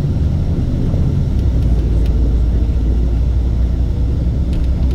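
Steady low rumble of a tour bus driving, engine and road noise heard from inside the cabin.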